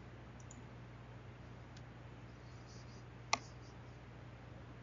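A computer mouse button clicking once, sharply, a little over three seconds in, with a fainter click before it, over a faint steady low hum.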